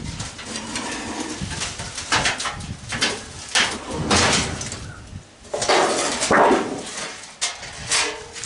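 Sheet-metal parts of a gas cook stove being handled and pulled apart, giving an irregular run of scraping and rattling noises.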